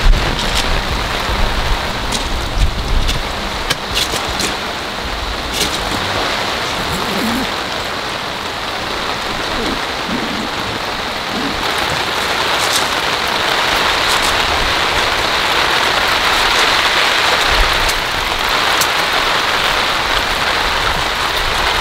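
Heavy rain pouring down in a steady, dense hiss that grows louder a little past halfway, with a few sharp ticks of drops striking close by.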